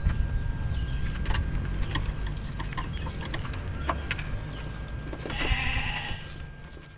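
A steady low rumble with scattered light clicks and taps, and a wavering animal call lasting about a second, some five seconds in; the sound fades away near the end.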